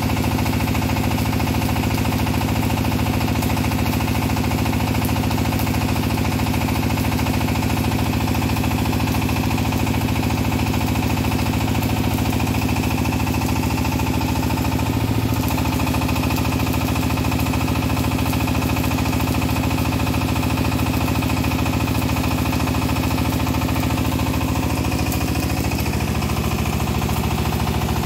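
Small single-cylinder diesel engine driving a portable welding generator, running steadily with a rapid, even knocking beat. Its pitch drops slightly near the end.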